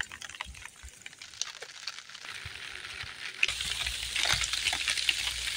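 Hail hitting a plastic tarp shelter as many small sharp ticks, which thicken into a dense crackle about two seconds in. A steady low rumble joins in the last two seconds.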